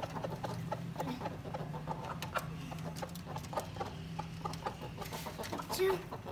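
Latch and wire-mesh door of a small wooden rooster cage clicking and rattling as it is worked open, with roosters clucking now and then and a low steady hum beneath.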